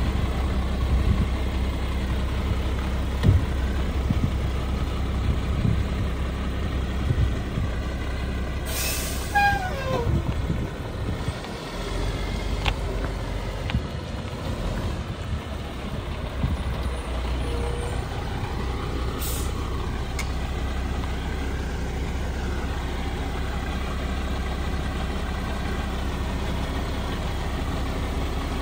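Mack LE garbage truck's engine running steadily, with a few knocks in the first seconds, a sharp air brake hiss about nine seconds in followed by a short falling tone, and a second, shorter air brake hiss about 19 seconds in.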